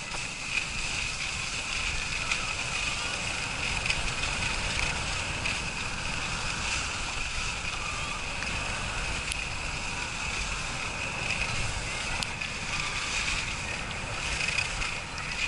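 Wind rushing over an action camera's microphone and skis sliding on snow during a fast downhill ski run at about 16 mph: a steady noise with a low rumble and a high hiss.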